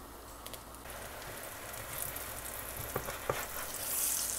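Pancakes frying in butter in a nonstick pan: a steady sizzle that swells near the end as a spatula slides under one to flip it. A couple of light clicks come about three seconds in.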